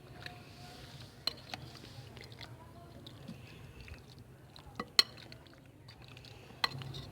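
Chicken pieces being mixed by hand in a spiced marinade, a soft wet squishing, with a few sharp clinks against the bowl; the loudest clink comes about five seconds in.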